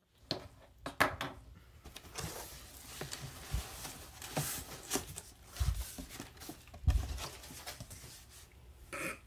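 A cardboard shipping box and its packing being handled and opened: scratchy rustling and crinkling with scattered clicks, and a few dull thumps.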